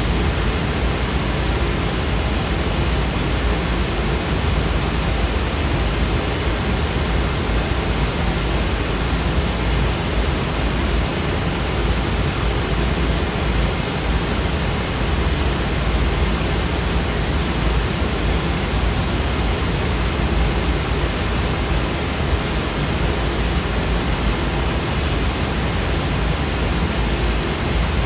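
Steady, unbroken white-noise sound effect: an even hiss spread across the whole range, somewhat heavier in the low end, with no changes or events.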